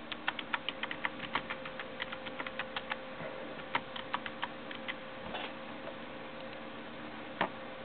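Typing on a computer keyboard: a quick, irregular run of key clicks for about three seconds, then a few scattered clicks, with one more near the end.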